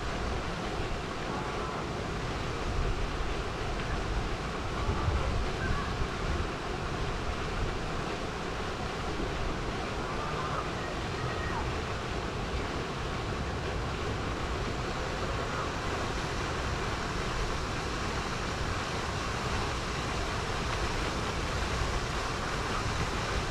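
Steady rushing water noise of a lake, with wind rumbling on the microphone and a few faint short calls in the background.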